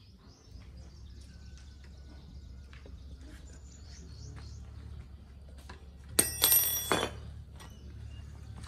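A harsh metal-on-metal scrape with a ringing edge, lasting under a second about two-thirds of the way through, as an old bicycle's rusted handlebar stem is worked loose. Faint bird chirps and a low steady hum run underneath.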